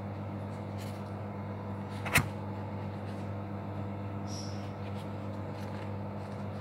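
Steady low hum with faint handling noises and one sharp click about two seconds in, as food is laid out on a plastic tray.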